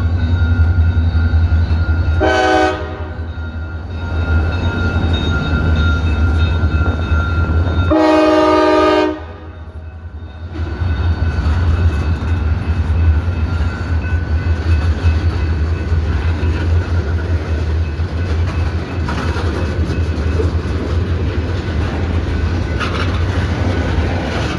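Diesel locomotive air horn sounding in blasts, a short one a little over two seconds in and a longer one about eight seconds in, over the steady low rumble of the train. After the horn the train keeps rumbling by with wheels clattering on the rails.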